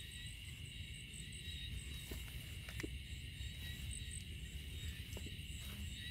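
Night insects such as crickets trilling steadily, with a fast pulsing high chirp, over a faint low rustle.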